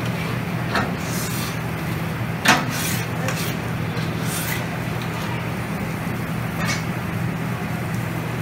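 A long-handled scraper scraping across a steel flat-top griddle in irregular strokes, cleaning it between orders. There is a sharp clank about two and a half seconds in, over a steady low hum.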